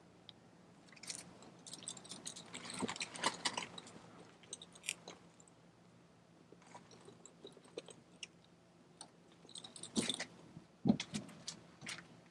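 Irregular clicks, crinkles and scrapes of hands working plastic fittings and the kayak's inflatable skin, in two busy spells with quieter handling between them.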